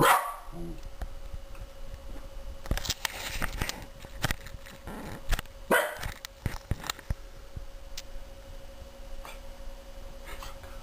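Shiba Inu barking up at a spider on the ceiling: one loud bark right at the start, then scattered shorter, quieter sharp sounds.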